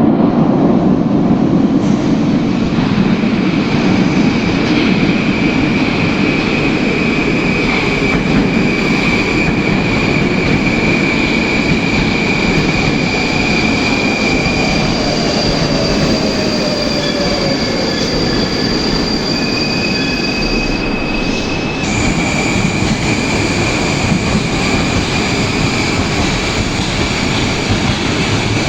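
Moscow metro train of the Moskva-2020 type running on the rails with a steady rumble. A high, long wheel squeal drops out briefly after about 15 s, and a fainter falling whine comes in midway.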